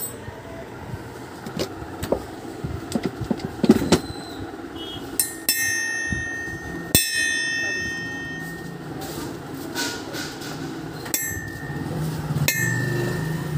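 Small hammer tapping a steel punch against a brass idol to chase fine detail into the metal: a run of light sharp taps, then four harder strikes that ring on with a bright metallic tone.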